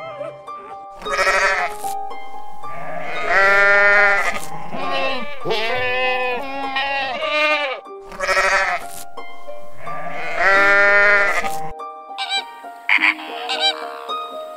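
A farm animal bleating: about five loud, long, wavering bleats, then shorter, fainter calls near the end. Soft background music with held notes plays underneath.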